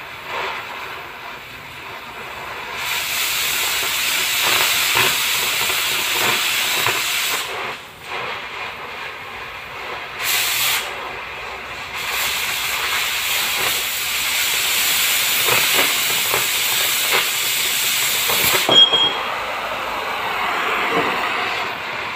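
Oxy-fuel cutting torch cutting through steel plate: a loud, rushing hiss in two long stretches with a short blast between, dropping to a softer flame hiss in the gaps.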